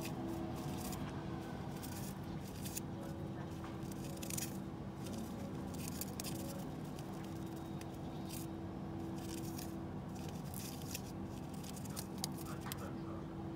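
A pigeon preening, its beak working through its tail feathers with short, irregular scratchy rustles. A steady low hum runs underneath.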